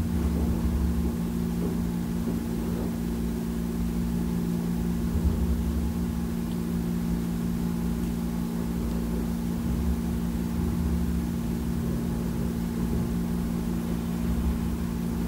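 Steady low mechanical hum, like an idling engine, with a deeper rumble that swells and fades every few seconds.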